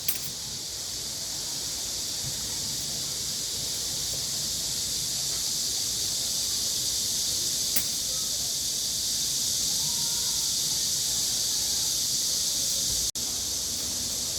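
A steady, high-pitched hissing drone, with a single sharp click about eight seconds in.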